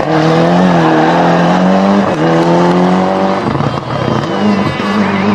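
Toyota Celica GT-Four rally car's turbocharged four-cylinder engine running at high revs, the note held steady with a brief lift about two seconds in. About three and a half seconds in it gives way to a rougher, less even engine sound.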